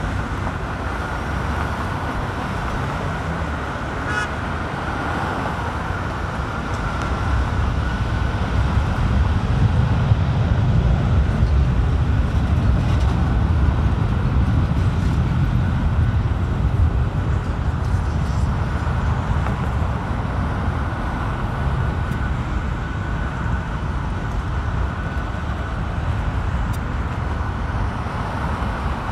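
Boeing 737 jet engines running as the airliner moves along the airfield: a steady roar with a constant high whine. The low rumble swells about a third of the way in and eases again later.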